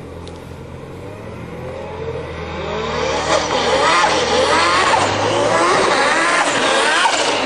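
Turbocharged Honda del Sol accelerating hard toward the listener, its engine note sweeping up and down in pitch, growing louder from about two seconds in and then staying loud.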